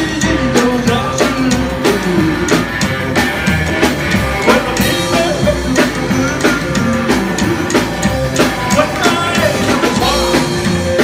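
Live rockabilly band playing a song: a singer over electric guitar, upright bass and a drum kit keeping a steady, driving beat.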